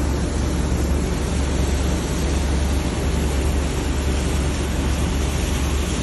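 A drill ship's machinery running with a steady low hum, under a loud, even rush of water churning at the sea surface below the hull.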